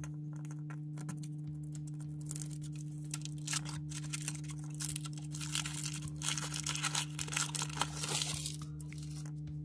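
Thin aluminium foil wrapper being peeled and crinkled off a hollow chocolate egg, crackling in irregular bursts from about two seconds in until shortly before the end.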